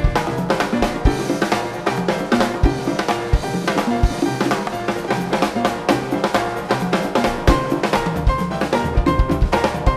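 Drum kit played fast, a dense run of snare, tom and cymbal strokes over bass-drum kicks, with other instruments holding pitched notes beneath.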